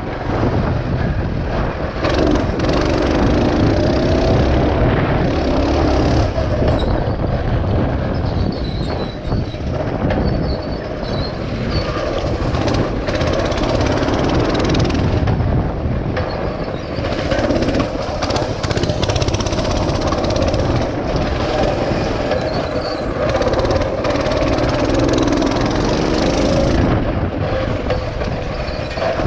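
Mini bike's small engine running while being ridden, its pitch rising and falling with the throttle, over a heavy rumble.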